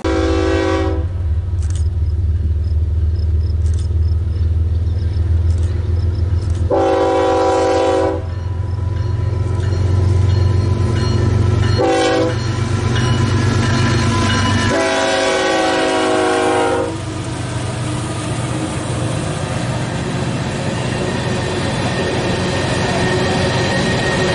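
Freight train diesel locomotive horn sounding the grade-crossing pattern of long, long, short, long over the heavy rumble of the passing locomotive's engine. After the last blast the engine rumble fades and the clatter of covered hopper cars rolling by takes over.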